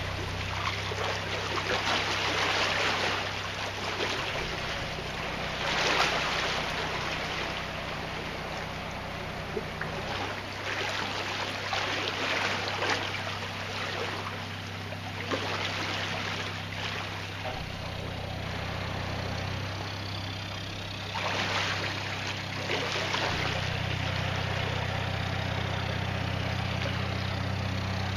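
Narrowboat diesel engine running slowly and steadily, its note stepping up and down a few times as the throttle is worked. Water rushes and churns in the lock chamber as it fills, in surges that die away near the end.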